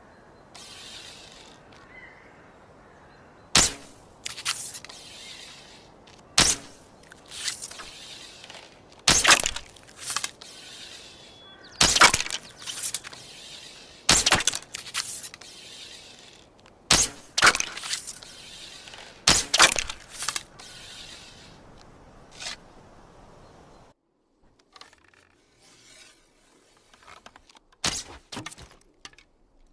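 A series of bow-and-arrow sound effects: many sharp, short snaps and hits, some coming in quick clusters of two or three, growing fainter and sparser near the end.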